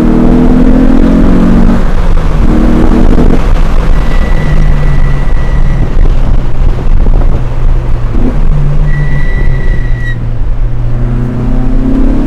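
Peugeot 306 GTI-6's 2.0-litre four-cylinder engine heard from inside the cabin under hard driving: the revs climb, drop sharply about two seconds in at a gear change, and climb again. Through the middle it runs lower and steadier, with a thin high whistle coming in twice, then the revs rise again near the end.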